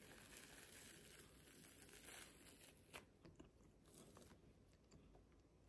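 Faint soft tearing and crackling of a layered Danish bread loaf pulled apart by hand, with a couple of small clicks around three and four seconds in.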